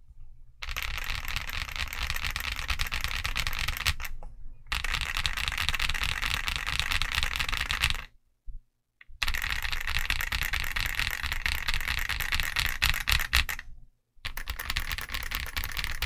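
Typing on a Zoom65v2 65% mechanical keyboard fitted with KFA N2O switches and MT3 Cyber keycaps: rapid keystrokes in four bursts, with short pauses about four, eight and fourteen seconds in.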